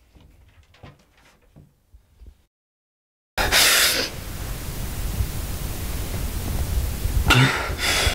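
Faint clicks and rustles, a moment of silence, then a loud static-like hiss with a low rumble starts suddenly about three and a half seconds in. It surges louder at its start and again near the end, then cuts off abruptly.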